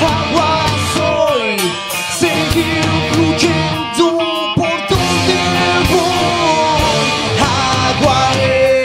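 Live rock band playing loudly: sustained pitched lines, several sliding downward in pitch, over a steady run of drum and cymbal hits.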